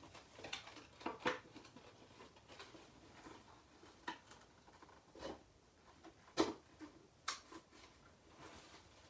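Light clicks, taps and cloth rustles from handling a cloth-costumed animatronic doll prop while its costume is fastened, scattered irregularly, with the sharpest tap about six seconds in.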